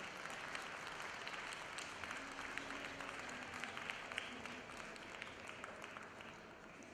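Arena audience applauding, the clapping thinning and fading away over the last couple of seconds.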